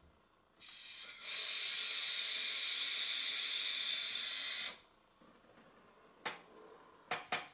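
Sub-ohm vape tank hissing as a hit is drawn through it, with its 0.15-ohm nickel (Ni200) temperature-control coil firing. The hiss starts soft, grows louder about a second in, holds steady for about three and a half seconds, then cuts off suddenly.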